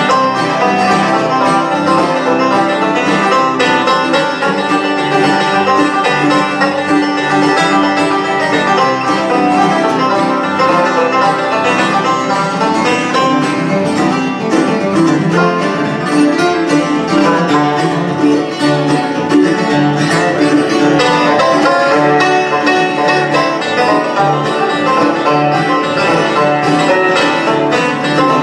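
Bluegrass band playing live: five-string banjo, mandolin, acoustic guitars and upright bass together, with the banjo standing out.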